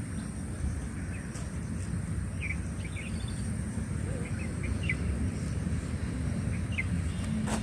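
Short, scattered bird chirps over a steady low outdoor rumble, with a faint steady high tone above them.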